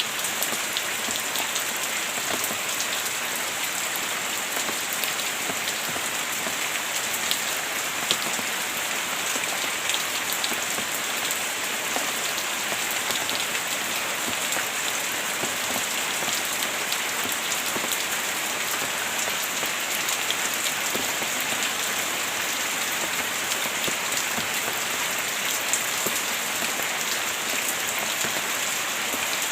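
Heavy rain falling steadily, a dense even hiss with many fine drop impacts and no thunder.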